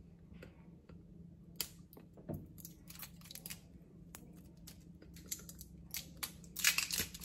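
Faint, scattered light clicks and rustles of seasoning containers being handled and opened, growing busier near the end, over a low steady room hum.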